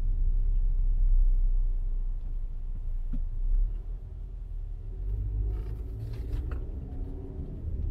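Low, steady rumble of a car's engine and tyres heard from inside the cabin while driving, a little quieter in the second half.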